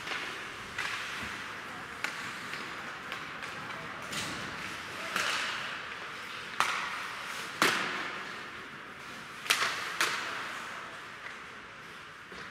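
Ice hockey skates scraping and hissing on the ice, with a handful of sharp clacks of sticks and puck ringing on in the hall. The loudest clacks come about halfway through and again a couple of seconds later.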